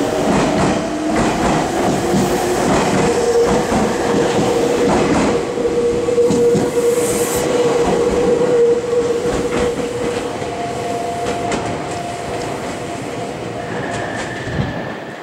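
Six-car Meitetsu 3500 series and 3100 series electric train pulling out and accelerating past the platform. Its wheels click over the rail joints under a steady whine, and the sound fades as the last car draws away.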